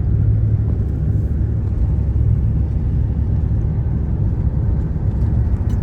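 Steady low rumble of engine and road noise heard from inside a vehicle driving along a road.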